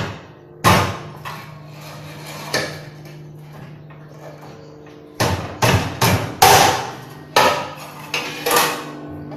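Manual porcelain tile cutter at work as a thin strip is scored and snapped off: sharp clacks and knocks of the handle and breaker against tile and rail. There are two single knocks in the first few seconds, then a quick run of about six near the end.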